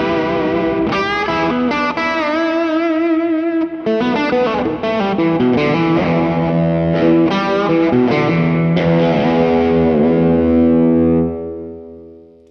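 Overdriven electric guitar: a Fender Stratocaster played fingerstyle through a Klon Centaur overdrive pedal with its gain up full, into two combo amps. It plays sustained notes with bends and vibrato, then rings out on a held chord that fades away over the last second or so.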